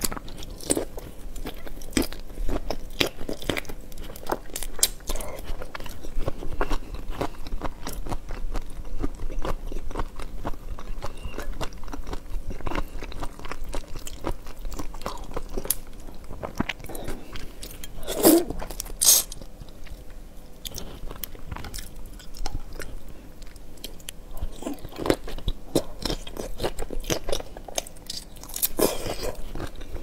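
Close-miked eating of large chili-marinated shell-on shrimp: bites, crunching of shell and wet chewing, with a steady run of small clicks and a few louder crunches about 18 seconds in and near the end.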